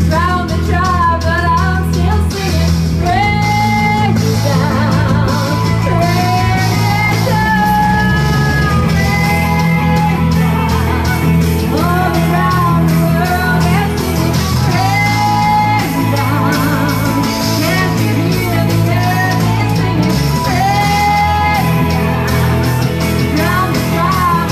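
Live rock band playing: a woman singing long held notes with vibrato over electric guitars, bass guitar and drums.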